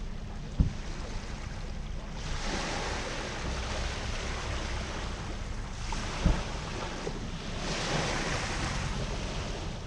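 Wind and waves: a steady rush of wind and water that swells a couple of times, with wind buffeting the microphone and two brief low thumps.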